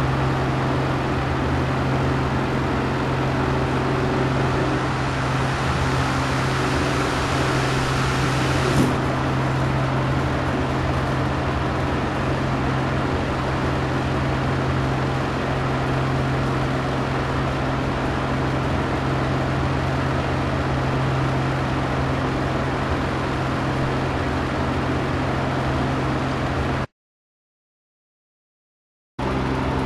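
Electric fan running steadily: a constant motor hum under the rush of its airflow, with one small click about nine seconds in. The sound cuts off abruptly near the end.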